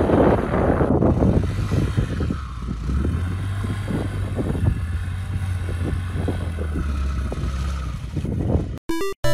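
Honda Grom's small single-cylinder engine running as the bike is ridden through snow, with wind on the microphone. The engine is loud and rough at first, then holds a steady drone from about three seconds in. Near the end it cuts off abruptly and chiptune music begins.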